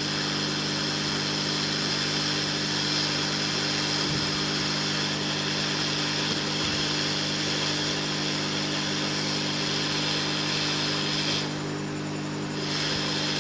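Steady electric hum and hiss of a small motorised workbench tool running while the charging-port pads on a phone circuit board are cleaned. The hiss stops for about a second near the end, then comes back.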